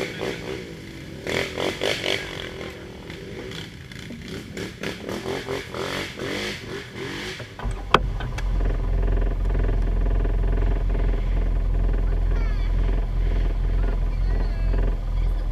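ATV engines running on the trail, rising and falling unevenly at first. About eight seconds in there is a sharp click, and a louder, steady low engine rumble takes over.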